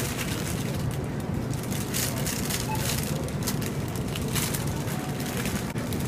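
Wire shopping cart being pushed along a store floor, its wheels and basket rattling steadily over a low background hum.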